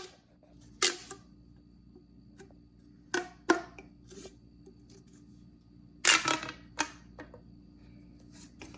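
Plastic fidget toy being handled and pressed, giving several separate sharp clicks and snaps, the longest and loudest about six seconds in.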